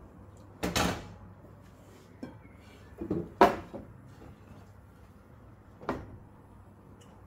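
Pans knocking on a gas hob's pan supports as a lidded pan is moved off and a square grill pan set down: three clunks, the loudest about three and a half seconds in.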